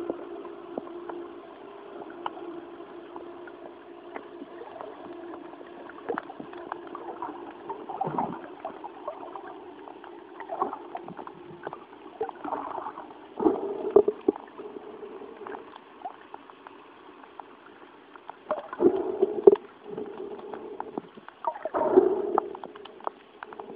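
Sea water sloshing and gurgling in irregular bursts, with a steady motor hum in the first several seconds that fades away.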